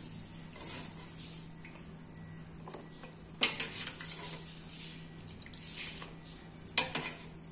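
Metal ladle scooping soup from a stainless steel stockpot, clinking sharply against the pot twice: once about three and a half seconds in, the louder one, and again near the end.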